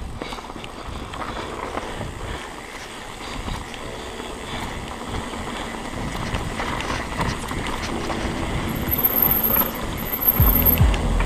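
Mountain bike descending a dirt trail at speed: tyres rolling over the ground, with the bike rattling and knocking over bumps. Wind buffets the microphone, heavier near the end.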